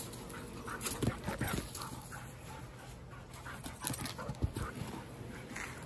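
A young shepherd–Labrador mix dog panting in short, irregular breaths, with a few soft knocks and scuffs.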